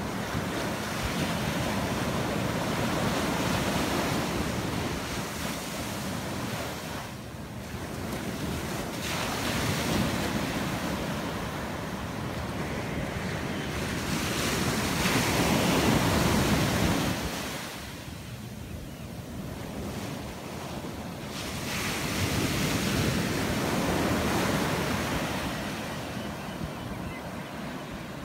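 Ocean surf breaking on a sandy beach, with waves swelling and washing up the sand in slow surges every six to eight seconds; the loudest comes about two-thirds of the way through. Wind rumbles on the microphone.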